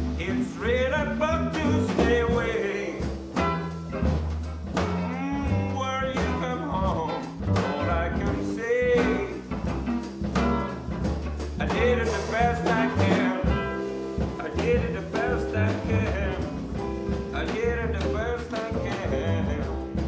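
Acoustic blues band playing in a swinging groove: guitar and a deep bass line under a bending, wavering lead melody.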